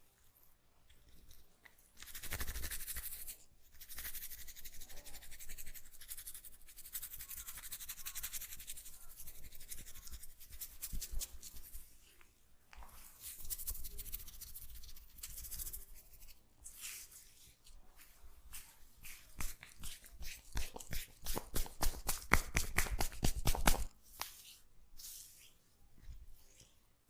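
Hands rubbing and kneading oiled hair and scalp, a scrubbing friction sound in long stretches. About three-quarters of the way through comes a rapid run of quick taps or slaps on the head, many a second for about three seconds, the loudest part.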